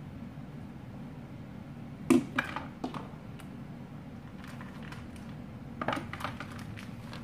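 Kitchen clatter as a bowl and utensils are handled on the counter: a sharp knock about two seconds in followed by a few lighter clicks, and another short cluster of clicks and knocks near the end, over a steady low hum.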